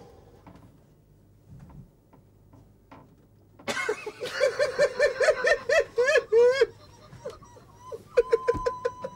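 A man bursting into loud laughter about four seconds in, in quick rhythmic pulses, breaking up the take; a shorter bout of laughter comes near the end.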